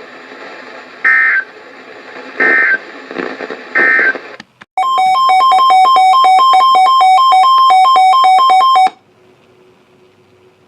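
NOAA Weather Radio end-of-message data signal: three short, buzzy digital bursts about a second and a half apart. Then an electronic alert beep alternates rapidly between a higher and a lower pitch for about four seconds and cuts off.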